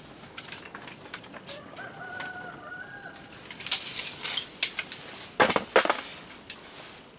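Boards of a small wooden frame knocking and clattering on a plywood workbench as they are handled, loudest a little past the middle. Earlier, about two seconds in, a single held pitched call sounds for about a second.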